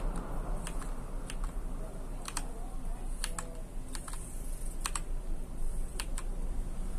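Motospeed CK108 mechanical keyboard with Gateron switches: single keys pressed now and then, about a dozen sharp separate clicks at irregular intervals.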